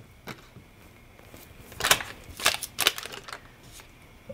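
A butter knife cutting a stick of butter in its paper wrapper and the butter going into a nonstick pot: a few short crinkling, crunching noises, most of them about two to three seconds in.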